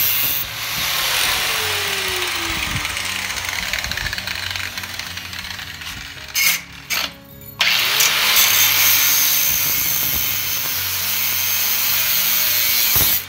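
Corded angle grinder with an abrasive cutoff wheel cutting through a galvanized steel gate rail tube. It cuts steadily, drops out about six seconds in with two short bursts as it is repositioned, then cuts again until it stops just before the end.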